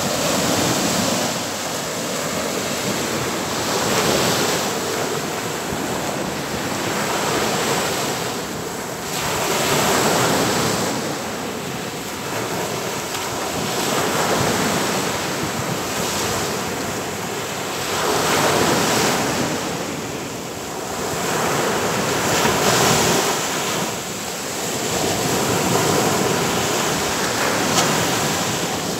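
Sea waves breaking and washing up a sandy beach: a rush of surf that swells and eases every few seconds as each wave breaks and runs up the sand.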